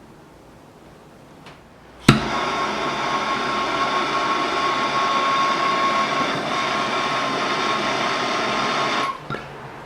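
MAPP gas torch igniting with a sharp pop about two seconds in, then its flame burning with a loud, steady hiss and a faint steady whistle. The flame drops away about nine seconds in.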